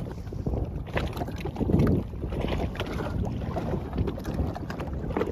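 Sea-Doo Fish Pro jet ski trolling slowly on choppy sea: a low engine rumble under wind buffeting the microphone and water slapping the hull, with a louder surge about two seconds in.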